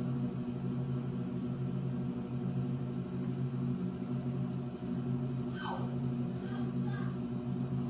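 Electrolux Turbo Economia LTE09 top-load washing machine in its final spin: a steady motor hum at constant speed. About five and a half seconds in, a brief falling squeak is heard, followed by a few faint chirps.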